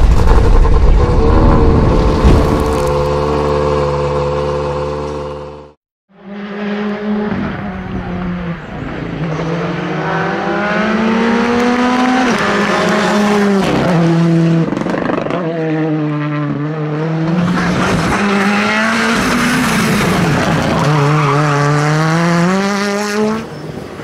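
Intro sting: a deep rumble, then a steady synthesized chord that fades out at about six seconds. Then R5 rally cars' turbocharged four-cylinder engines accelerate hard through the gears, the pitch climbing and dropping sharply at each upshift or lift.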